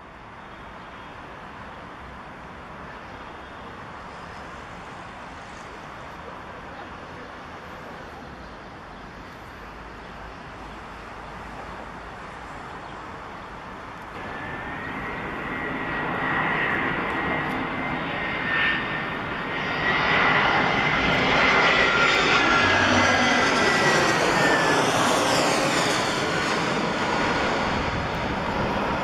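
Airbus A320 airliner's twin jet engines on final approach, growing steadily louder as it closes in, with an engine whine that comes through about halfway in. Loudest near the end as it passes overhead, its rushing noise sweeping and phasing.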